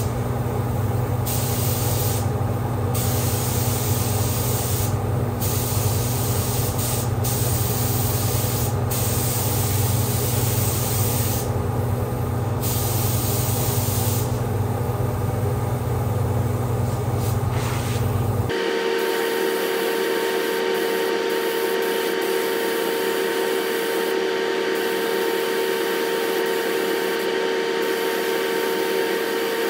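Compressed-air paint spray gun hissing in bursts, with short breaks as the trigger is released, over the steady drone of the spray booth's fan. About two-thirds of the way through, the sound switches abruptly to a steadier hum with a couple of fixed tones and no low rumble.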